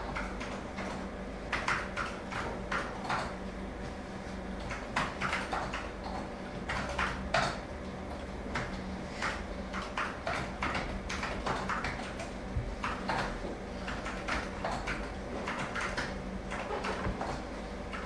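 General atmosphere inside a school building: irregular knocks and clatters scattered over a steady low hum.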